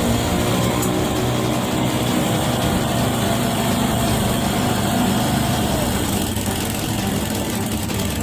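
Riding lawn mower engine running steadily.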